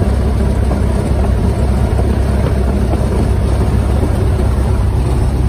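Rutan Defiant's front piston engine and propeller running steadily at about 1,000 rpm, heard from inside the cockpit, with the rear engine shut down.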